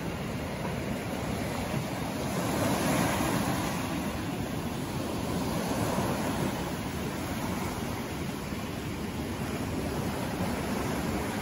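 Ocean surf: small waves breaking and washing up a sand-and-pebble beach. A steady rush of water swells and eases as each wave comes in.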